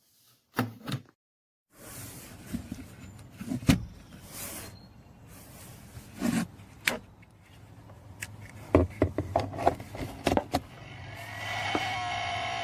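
A series of irregular knocks, clicks and rubbing over a low steady background, with the loudest run of clicks about nine to ten seconds in. Music starts near the end.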